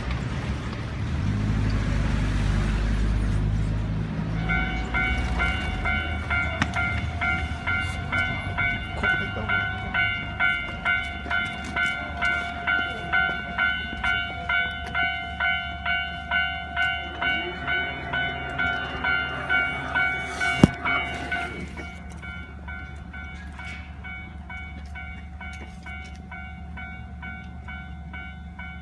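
Japanese level-crossing warning bell ringing in a steady, even rhythm of about four strokes every three seconds. It starts about four seconds in and becomes quieter about three-quarters of the way through. A low rumble lies underneath, loudest at the start.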